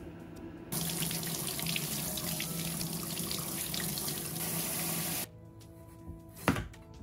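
Kitchen faucet spraying water over hands rubbing a carrot clean in the sink; it comes on about a second in and cuts off abruptly about five seconds in. Near the end a single knife chop goes through a carrot onto a plastic cutting board.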